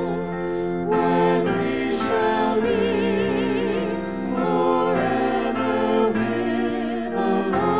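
Worship music: several voices singing with vibrato over sustained instrumental accompaniment, the chords changing every second or so.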